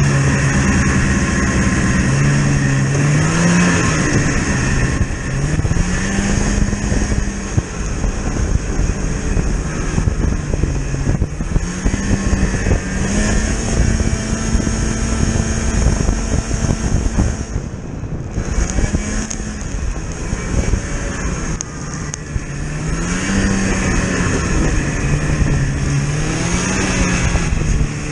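A motor vehicle's engine running under way, its pitch repeatedly rising and falling as the revs change, over a steady low rumble.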